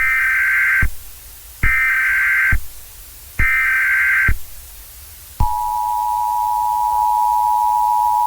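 Emergency Alert System SAME header: three short bursts of digital data tones. About five seconds in, the EAS attention signal starts, a steady two-tone alert that marks the start of an emergency warning.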